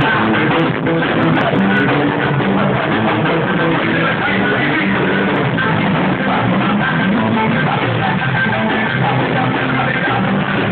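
Forró music, an instrumental passage led by guitar.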